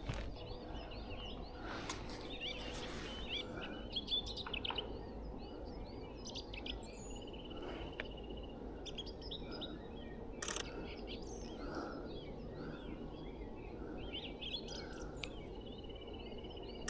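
Several small birds singing and chirping in the open, with short curved notes throughout and a rapid trill twice, plus a few sharp clicks.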